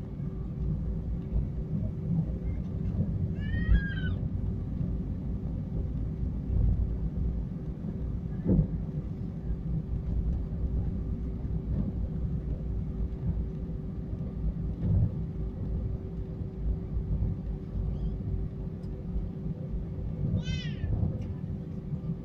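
Cabin noise of an Airbus A319 taxiing: a steady low rumble with a faint steady engine hum. Twice, about four seconds in and near the end, a brief high wavering squeal cuts through.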